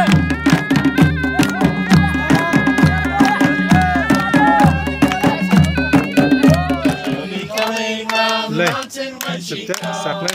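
Traditional folk music with a steady drumbeat under a held, wavering melody line. About three-quarters of the way through, the drum stops and voices take over.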